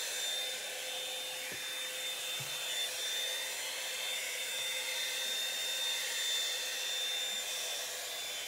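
Revlon One-Step hot air brush (hair dryer and volumizer) running steadily as it is worked through the hair: a rush of blown air with a steady high motor whine.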